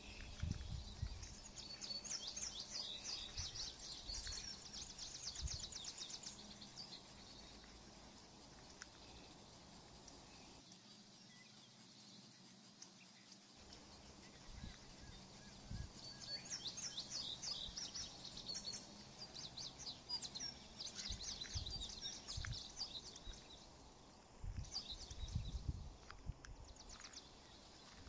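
Meadow birdsong: small songbirds singing in runs of quick, high chirps, in two long spells, one near the start and one past the middle. Low rumbling thuds lie underneath, heaviest near the end.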